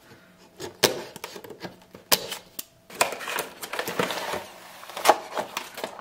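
Cardboard toy box being opened by hand: the tape seal on the end flap slit and the flap pulled open, then the clear plastic tray slid out. Several sharp clicks and crackles of card and plastic, with a stretch of scraping in the middle.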